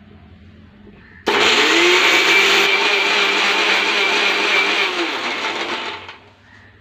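Electric mixer grinder grinding multani mitti (Fuller's earth clay) into powder: the motor switches on suddenly about a second in, spins up to a steady whine over a loud hiss, and winds down near the end.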